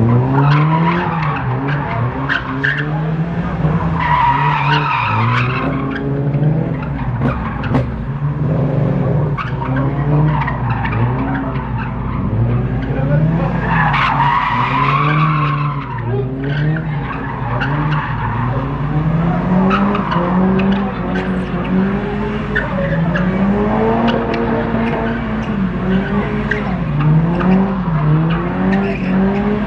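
A car being drifted: its engine revs rise and fall again and again, and the tyres screech loudly in two stretches, about four seconds in and again around fourteen seconds.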